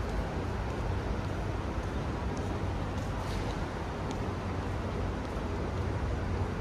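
Steady outdoor street ambience: a low, even rumble of road traffic, with a few faint ticks near the middle.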